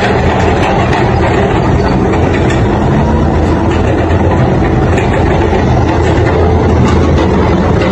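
Backhoe loader's diesel engine running steadily as the machine is maneuvered.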